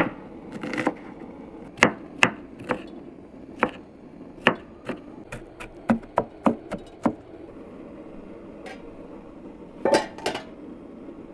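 Large kitchen knife chopping onion on a wooden cutting board: irregular sharp knocks that quicken to about three a second, then stop. Two more knocks come near the end.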